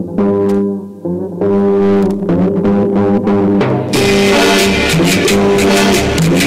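Opening of a recorded dance track played over the sound system: held chords stopping and starting in short phrases, then drums and the full band coming in about four seconds in.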